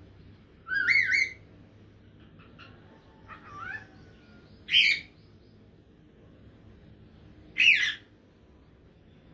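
Cockatiel calling: four short, warbling whistled calls spread over a few seconds, the second one softer than the other three.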